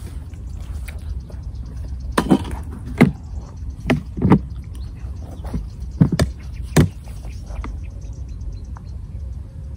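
A series of about seven knocks and thuds from handling a plastic fishing seat box and sitting down on it, over a steady low rumble.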